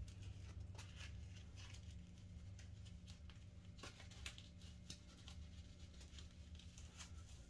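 Faint rustling and small scattered clicks of fingers and long nails working locks of hair onto flexible hair rollers, over a low steady hum.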